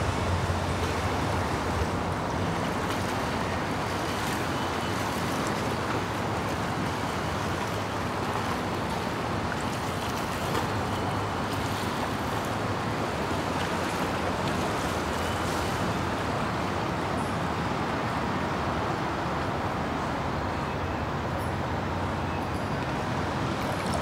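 Steady rushing noise at an even level throughout, with no pauses or surges.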